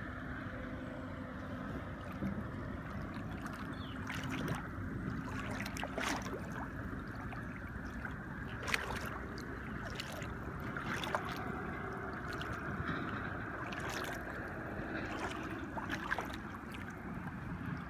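River water flowing steadily, with a scattering of sharp clicks and light knocks over it.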